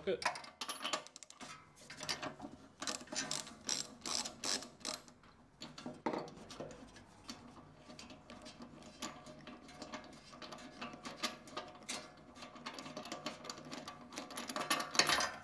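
Ratchet wrench with a 13/16-inch spark plug socket clicking rapidly as the spark plug is loosened, then softer, sparser metallic clicks as the plug is turned out, with a louder clatter near the end.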